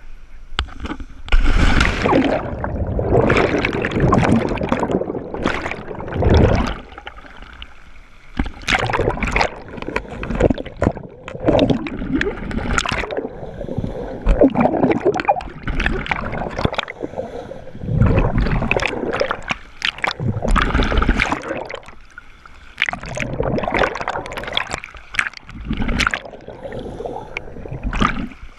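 Water sloshing, gurgling and splashing in irregular surges, each a second or two long.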